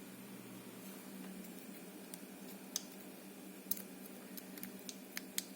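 A handful of small, sharp metallic clicks and ticks from tweezers handling a spool pin as it is loaded on top of its spring into an ABUS 72/40 padlock's core, over a faint steady hum.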